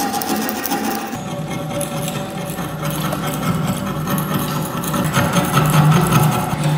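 Metal scraper scraping thick crusted rust off an old kukri's steel blade: a continuous rapid gritty scratching as the rust flakes and crumbles away.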